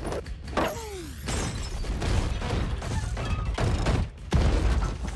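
Film action soundtrack: music under a rapid run of crashing impacts and booms, with a falling pitched swoop about half a second in and a heavier hit a little after four seconds.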